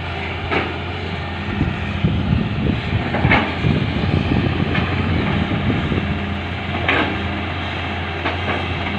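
Heavy-machinery diesel engine running steadily during excavator loading of a dump truck, with a rough rumble from about one and a half to five seconds in and several sharp metallic clanks spread through.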